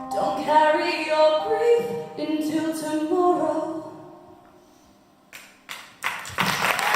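Women's voices singing the last lines of a folk song with the backing instruments dropped out, fading away about four seconds in. After a brief hush, a few claps are followed near the end by the audience breaking into applause.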